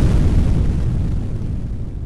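The tail of a large explosion sound effect: a heavy low rumble that fades steadily.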